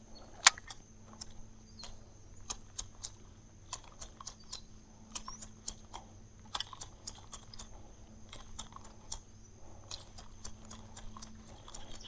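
A run of sharp, irregular clicks, two to four a second, with the loudest one about half a second in, over a faint steady hum.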